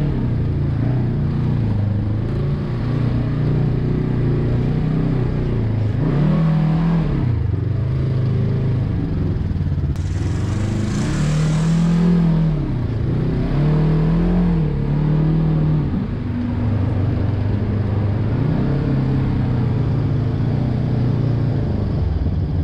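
Side-by-side buggy's engine heard from the cab, revving up and easing off several times as it drives over a rough sandy trail. A brief rush of noise about ten seconds in.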